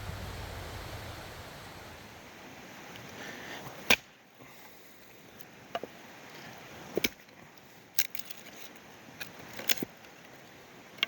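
A low rumble fading out over the first two seconds, then a string of sharp wooden knocks and snaps, one every second or two, as firewood and kindling are handled for a campfire.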